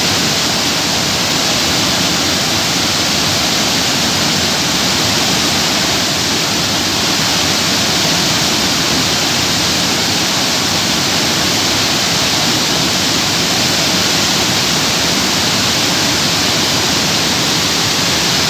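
Steady rushing of fast-flowing water: a loud, continuous hiss with no breaks.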